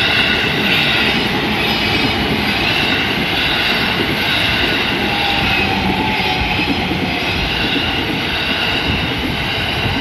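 JR East E531-series commuter train passing over a level crossing, its wheels on the rails making a steady noise, with the crossing's warning bells ringing over it.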